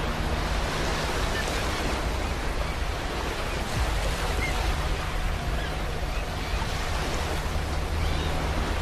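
Ocean surf: waves washing continuously onto a beach, with the wash swelling slightly about four seconds in and again near the end.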